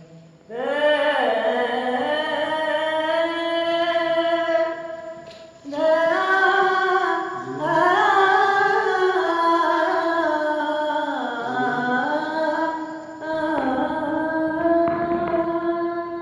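A solo voice singing long, held notes that glide between pitches, in three phrases with short breaths between them.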